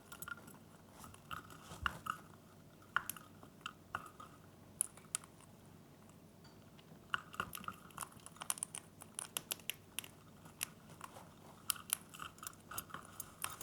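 Grey-breasted conures crunching treats with their beaks: irregular sharp clicks and crunches, with a lull in the middle and a busier stretch in the second half.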